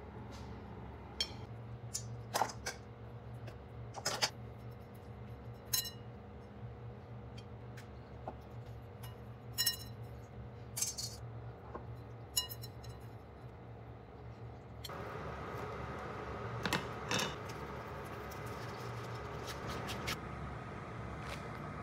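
Scattered light clinks of a glass mixing bowl and metal tongs as hands press panko breadcrumbs onto pieces of meat. About fifteen seconds in, a steady hiss of pans simmering on the stove takes over, with a few more clinks.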